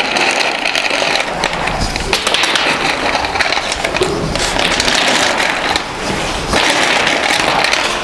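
Pig-barn din: a dense crackling, clattering noise full of small clicks from pigs and their metal pens, easing briefly about four and six seconds in.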